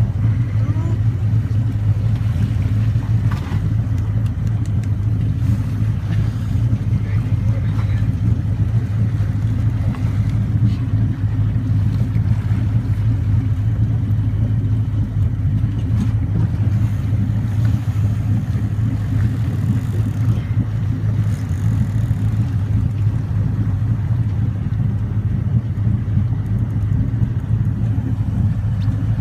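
Boat motor running steadily, a constant low hum with no change in speed.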